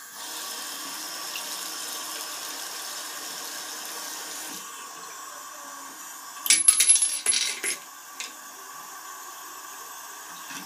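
Water running steadily from a broken bathroom basin tap into the sink, easing slightly a little under halfway through. About six and a half seconds in, the tap's handle is worked and gives a second or so of sharp metallic clicks and rattles with a thin squeak, the loudest sound, then a single click.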